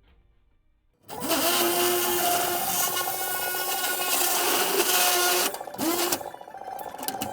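Handheld power tool cutting sheet tin along a marked line. It starts about a second in, its motor pitch rising as it spins up, then runs loud with a harsh metallic hiss. It eases off briefly near six seconds and spins up again.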